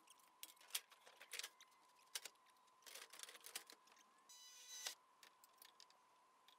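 Faint, scattered knocks and clatter from a thin pressed-steel tile-profile roofing sheet being handled on a ladder and laid onto the roof, with a short grating scrape about four and a half seconds in.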